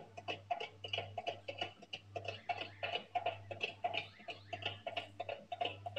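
Tinny electronic music of short plinking notes repeating about three to four times a second, over a steady low hum.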